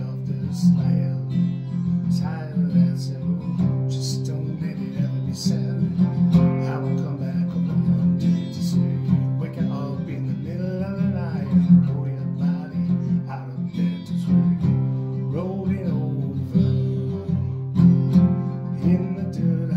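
Acoustic guitar strummed steadily in a chord pattern, an instrumental passage between sung lines.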